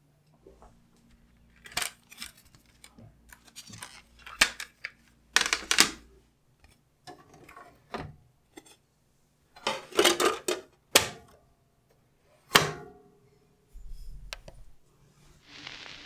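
Plastic clicks and clatter of a CD and a portable CD boombox being handled: the disc is set into the player's open lid and the lid is snapped shut, a series of sharp clicks a second or two apart.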